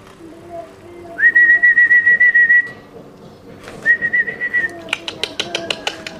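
A warbling whistle held at one pitch: a long blast of about a second and a half, then a shorter one. It is followed by a quick run of sharp clicks near the end.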